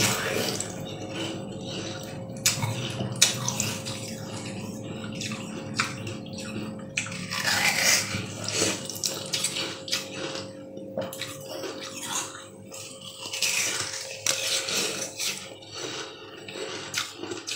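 Crunching and chewing of bitten-off pieces of green ice: irregular crackles and clicks throughout, thickest about halfway through and again near the end.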